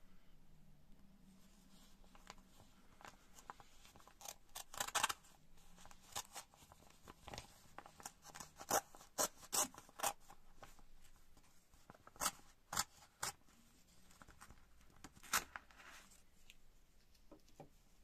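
A pocket-knife letter opener's blade slicing through the edge of a brown paper envelope, with crisp crackles and rustles of the paper. The paper gives several clusters of sharp snaps as the blade cuts along it.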